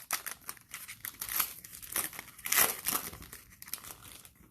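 Trading cards and their cellophane pack wrapper being handled, with irregular crinkling and rustling and a louder rustle about halfway through.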